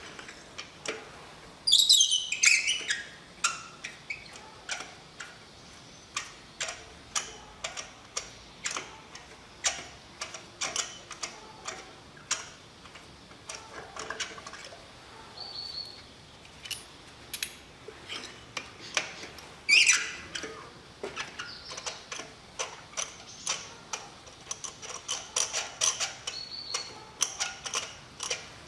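Irregular sharp clicks and light ticks run throughout. Two loud, quick falling chirps come about two seconds in and again near the middle, the loudest sounds here, with a few short high peeps between them, typical of a bird calling.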